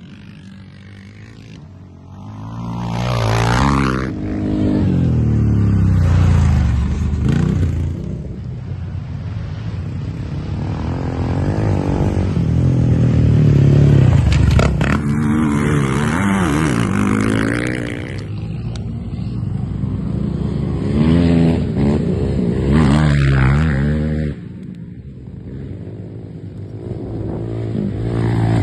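Racing ATV engines revving hard as quads pass close by one after another, the pitch rising and falling with each shift and pass. The sound dips briefly near the end before another quad comes through.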